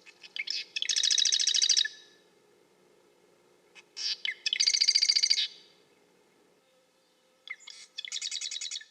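Marsh wren singing: three songs about four seconds apart, each opening with a few short ticks and running into a rapid rattling trill of about a second.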